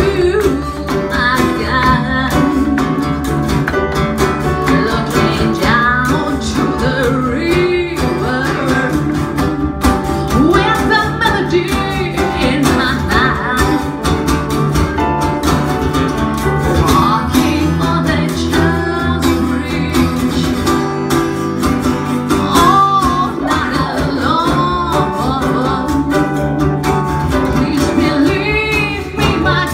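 A woman singing into a microphone with a small live band of acoustic guitar, electric guitar and keyboard, playing continuously.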